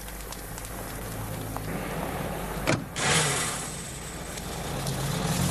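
Car engine running and pulling away, getting louder, with a brief knock about halfway through.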